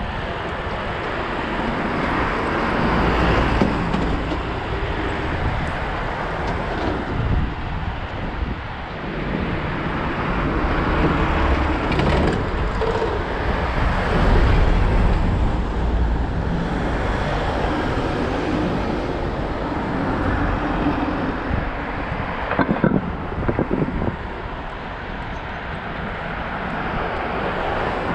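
Wind rushing over a head-mounted action camera's microphone on a moving bicycle, a steady loud noise with a low rumble that swells and fades, and a few short knocks along the way.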